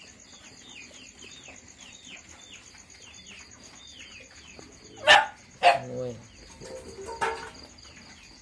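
Loud, sharp animal cries twice about five seconds in, the second trailing into a lower, falling cry, and another near seven seconds. They sound over a steady, faint, high pulsing trill like night insects, with a repeated falling chirp in the first half.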